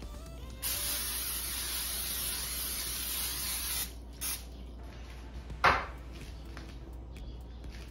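Extra virgin olive oil cooking spray hissing in one long spray of about three seconds, then a short second puff. A sharp knock follows a second or so later.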